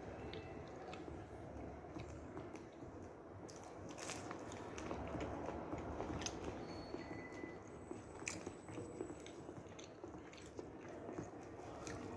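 Close-miked biting and chewing of a deep-fried pastel, a continuous wet chewing with many short crunchy clicks from the fried crust.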